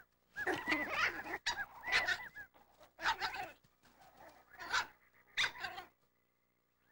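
Coyote pups giving several short bursts of yips and growls as they play-fight.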